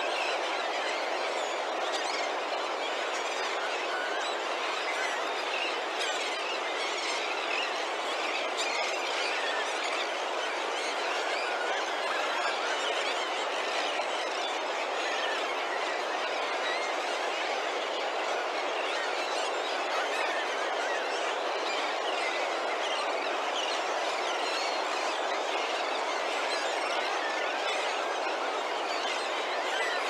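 A large flock of seabirds calling all at once: countless overlapping cries merge into a steady, unbroken din.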